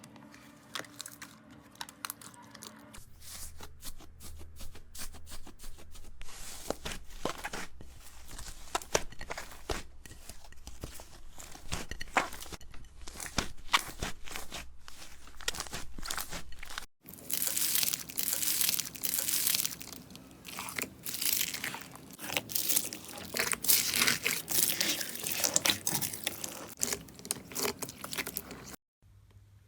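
Slime being squeezed and worked by hand, with dense crackling and crunching pops. The texture changes abruptly about three seconds in and again a little past halfway, where the crackling turns louder and denser.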